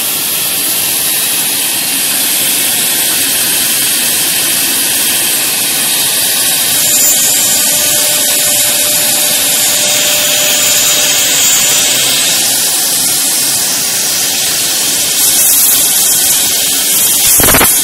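Air-cooled 4.5 kW CNC router spindle running at high speed and cutting into a wood door panel: a loud, steady, high-pitched machine noise. A short louder rush comes near the end.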